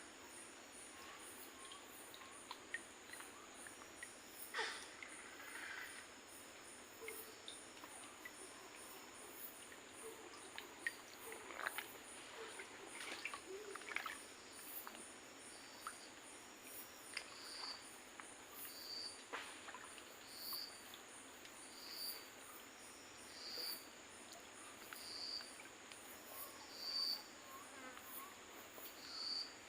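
Tropical forest insects chirring steadily, with a fast high pulsing over the drone. From about a third of the way in, a short high call repeats about every second and a half, and short noisy bursts and crackles come scattered throughout.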